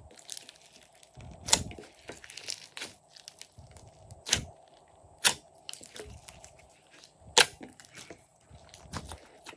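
Hands squeezing and stretching glossy slime in a glass dish: sticky squelching and crackling with several sharp pops spread through it.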